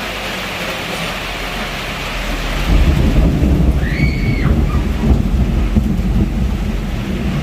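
Heavy rain falling steadily, with a low rumble of thunder that swells suddenly about three seconds in and keeps rolling. A brief high chirp sounds about four seconds in.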